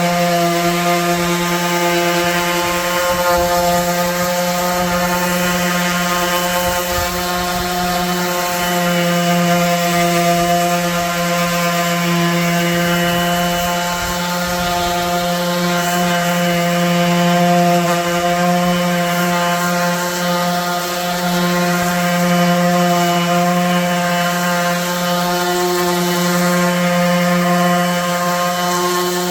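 Electric power sander running steadily with a constant pitched motor hum as it rough-sands wooden table boards.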